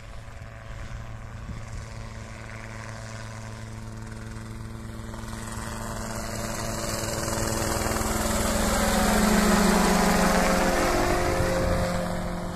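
Helicopter flying by low, its rotor and engine growing steadily louder as it approaches. It is loudest about nine to ten seconds in, then eases slightly as it passes.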